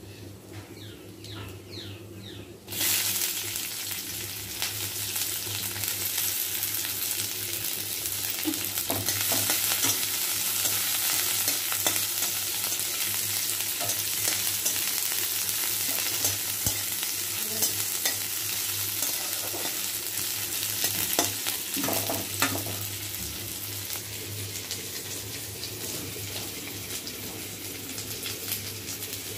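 Sliced onions hitting hot oil in a kadai: a sudden loud sizzle starts about three seconds in and keeps going as they fry. A metal spatula stirs them, with scattered clicks and scrapes against the pan.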